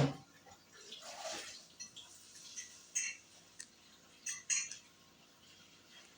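Plastic Rubik's cube being turned by hand: a sharp clack at the start, then scattered clicks and scrapes as the layers are turned.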